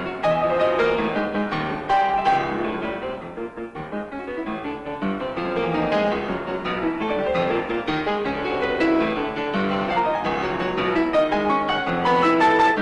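Solo grand piano playing a fast, dense passage of many notes. It softens briefly about three to four seconds in, then builds again.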